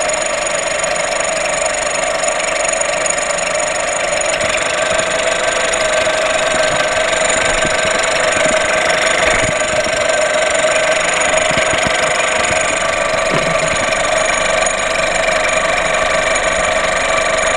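VW Golf VI 1.4 TSI (CAXA) turbocharged four-cylinder petrol engine idling steadily with a metallic clatter and ringing, "like a tin bin". The mechanic takes the noise to come from the high-pressure fuel pump, though that pump is said to be new.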